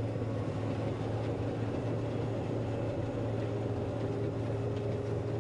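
John Deere 9500 combine running steadily while harvesting wheat: an even mechanical drone with a low hum and a few steady higher tones.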